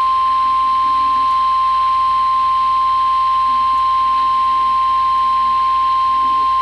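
NOAA Weather Radio warning alarm tone: a single loud, steady tone at about 1050 Hz, the signal that a warning message is about to be broadcast.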